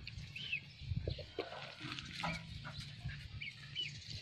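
Short, high chirping animal calls, each one rising and falling, come a few times over faint scuffling and a low outdoor rumble.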